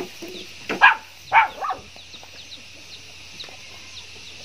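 A dog barking twice in quick succession about a second in, over faint bird chirps and a steady high hiss.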